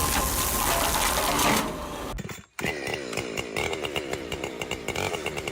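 A loud rushing noise that stops about two seconds in, then, after a brief break, a chainsaw running with its pitch wavering up and down as it is revved.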